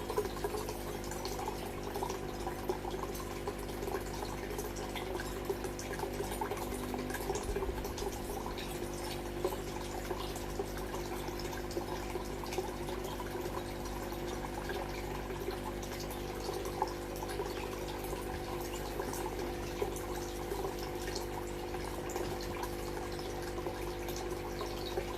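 Water trickling and dripping steadily in freshwater aquarium tanks, with small splashes throughout. A steady machine hum, as from aquarium pumps, runs underneath.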